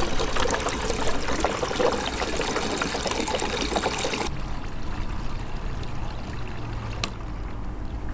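Kerosene pouring from a jerry can's spout through a funnel into a wick-type kerosene heater's fuel tank: a steady trickling rush that stops about four seconds in. After it only a low steady rumble remains, with one faint click.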